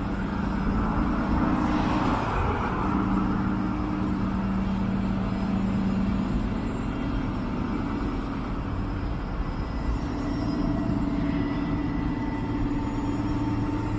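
Downtown street traffic: a vehicle passes in the first few seconds, over a steady low engine hum.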